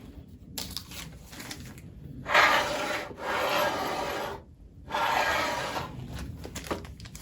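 Three long rubbing, scraping strokes, about a second each, with quieter rustling between them, as parts of a wood lathe are slid and handled.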